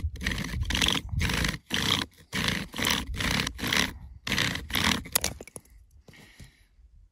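Bow drill being sawn back and forth: the wooden spindle grinding in its divot as it spins. It goes in even strokes about twice a second and stops about five seconds in.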